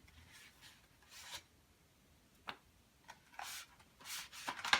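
Paper and packaging being handled: intermittent rustling and rubbing. There is a brief tick about halfway through and a louder burst of rustling near the end.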